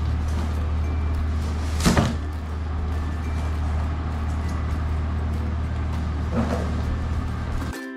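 Cardboard flaps of a monitor's shipping carton being handled and pulled open, with brief rustling scrapes about two seconds in and again near the end, over a steady low rumble.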